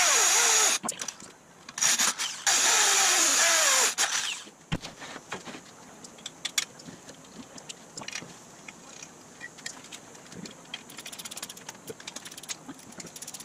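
Corded electric drill boring through steel angle iron in two runs, the first stopping about half a second in and the second from about two to four seconds in, with a wavering whine from the bit in the metal. After that, light metal clicks and taps as bolts and parts are handled.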